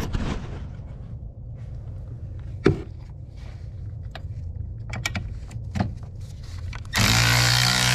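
Sharp metal clicks of a socket and extension being fitted onto a bolt, then about seven seconds in a cordless ratchet's motor starts and runs steadily, backing the bolt out.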